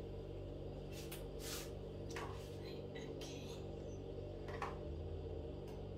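Spoon scooping icy berry slush out of a plastic container into a glass: a handful of short scrapes and plops, over a steady low hum.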